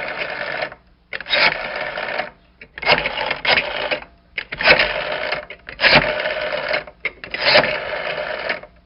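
Old telephone bell ringing in repeated bursts of about a second each with short gaps between them, six rings, the last stopping near the end.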